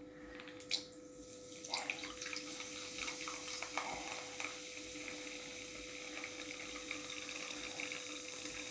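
Grape Fanta being poured from a bottle into a bowl over an egg: a steady splashing trickle with fizzing foam. It starts about two seconds in, after a single click.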